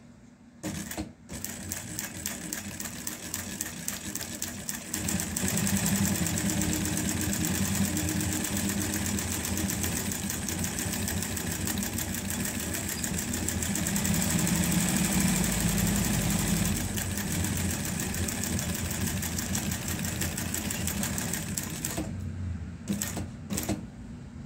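Juki LZ-586 industrial sewing machine straight-stitching through fabric layered over 1 cm thick: a fast, even run of needle strokes. It starts about half a second in, gets louder around five seconds in, and stops about two seconds before the end, followed by a few clicks.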